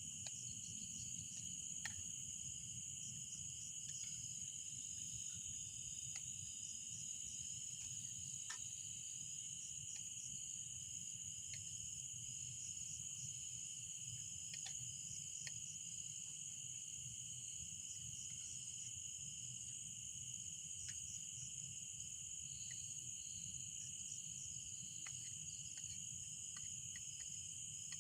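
A steady chorus of insects in the forest, a continuous high shrill drone at two pitches, with faint scattered ticks and a low steady rush underneath.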